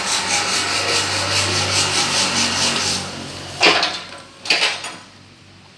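Fast, repeated rubbing strokes from a hand tool working on a workpiece, then two louder single strokes about a second apart.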